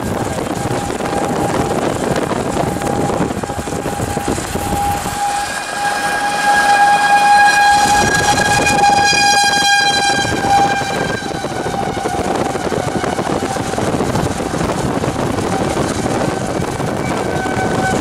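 Outdoor tornado warning siren sounding one long steady tone, swelling louder and brighter about six to eleven seconds in, over steady vehicle and wind noise.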